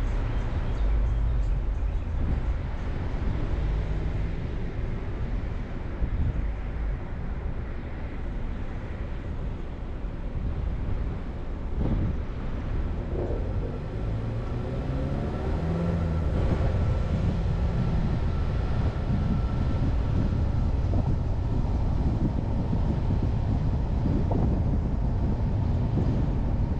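Steady low rumble of a car's engine and road noise, heard from inside the car. About halfway through, the engine note rises as the car pulls away from a stop.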